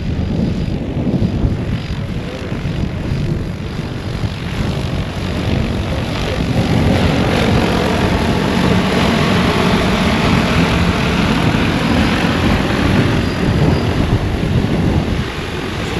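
DJI Agras T40 agricultural spray drone's rotors running with a steady whir, getting louder about six seconds in.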